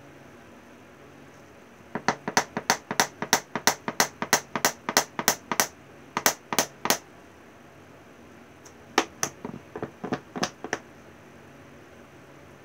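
Quick sharp taps on a container of Woodland Scenics gold turf, shaking the flock out onto the glued base: a run of about four taps a second starting about two seconds in, a short pair after it, and a few more about nine seconds in.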